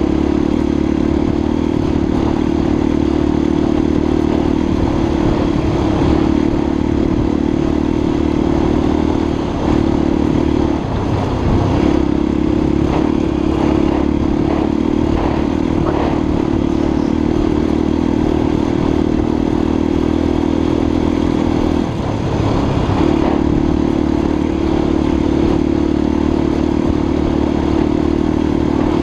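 Honda XLR250's single-cylinder four-stroke engine running steadily under throttle as the motorcycle rides along a snowy track. The engine note dips briefly twice, about ten and twenty-two seconds in, as the throttle is eased. A few knocks and rattles come through in the middle.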